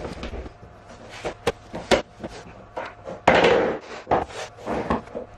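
Cork click-lock floor planks being handled and fitted: a string of sharp knocks and taps, with a longer, louder scrape a little past the middle.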